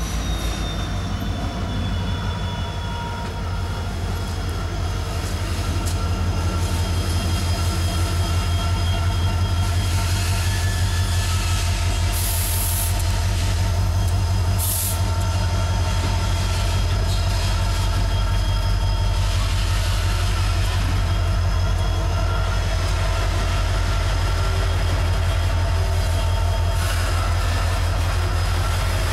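CSX diesel freight locomotives passing close by, with a loud, steady, deep pulsing engine rumble. Several steady high-pitched tones ring over it, and two short high hisses come about halfway through.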